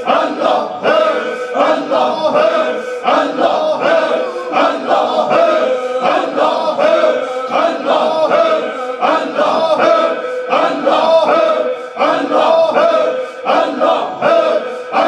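A group of men chanting dhikr together in unison, a short phrase repeated over and over in a steady, driving rhythm.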